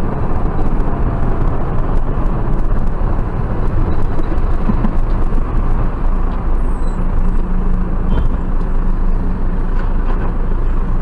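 Steady road and engine noise of a car driving in traffic, heard from inside the car, with a low steady hum coming in about six seconds in.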